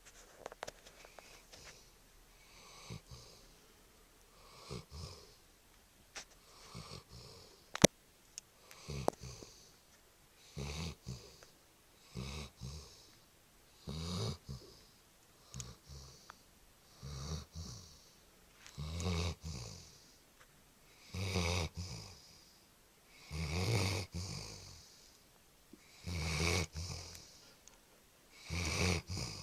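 Dog snoring in its sleep, one snore every two to two and a half seconds, getting louder toward the end. A single sharp click about eight seconds in.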